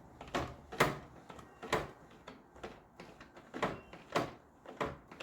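Motor oil glugging out of a bottle as it is poured, in an irregular series of short gurgles about half a second apart.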